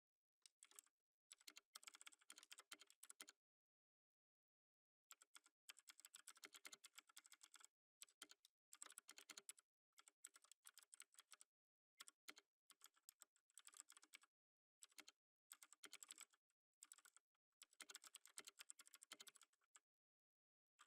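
Typing on a computer keyboard in quick bursts of keystrokes separated by short pauses, with one longer pause of about two seconds early on.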